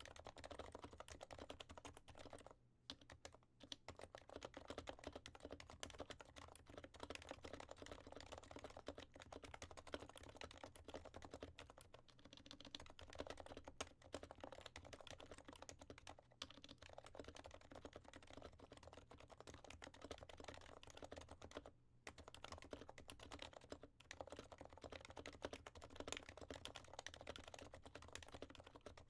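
Continuous fast typing on an HHKB Professional Classic with 45 g Topre electrostatic capacitive switches, lubed with Krytox 205g0 and fitted with silencing rings: soft, muffled keystrokes. It stops briefly about three seconds in and again near twenty-two seconds.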